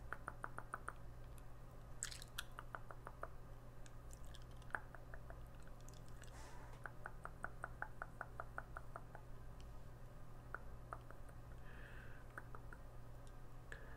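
Gum chewing close to the microphone: wet mouth clicks and snaps in quick runs of about six or seven a second, with single clicks between.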